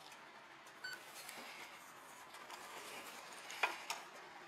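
A single short electronic beep from a gas pump keypad about a second in. Near the end come two sharp metallic clicks as the motorcycle's locking fuel filler cap is opened.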